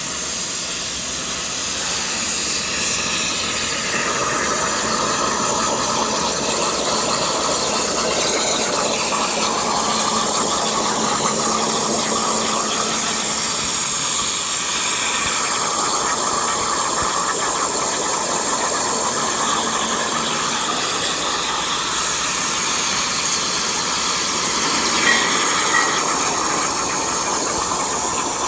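CNC plasma cutter torch cutting sheet metal: a steady, loud hiss.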